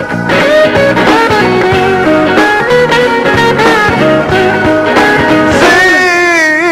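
Blues-rock song with a lead guitar, its notes bending up and down, most plainly in the last couple of seconds.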